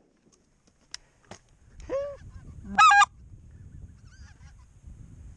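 Snow geese calling: one rising-and-falling honk about two seconds in, then a louder, sharper honk about a second later.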